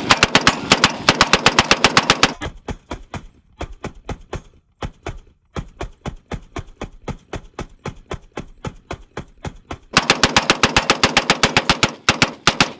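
Homemade rotating multi-rifle "minigun" rig firing a rapid, even string of shots, about seven a second, with a short break about five seconds in. The shots sound duller and quieter from about two to ten seconds in.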